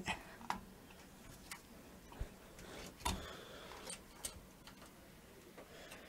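Faint, scattered plastic clicks and taps as a PC case fan's 4-pin connector is pushed onto a motherboard fan header and its lead is handled, about half a dozen in all, the loudest about three seconds in.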